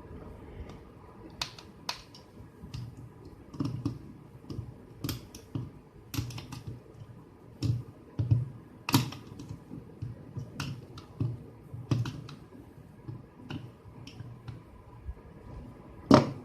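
Irregular light clicks and knocks of a plastic trimmer housing being handled and its screws tightened with a small screwdriver, with a sharper click near the end.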